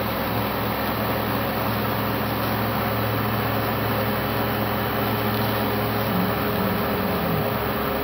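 CNC router spindle running steadily while its end mill carves into PVC foam board: an even, continuous machine noise with a low hum.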